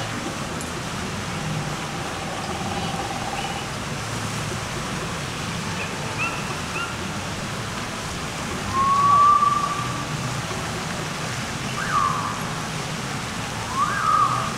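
Outdoor ambience of a busy open-air shopping area: a steady rushing hiss with scattered distant voices. A drawn-out high call comes about nine seconds in, and two short gliding calls come near the end.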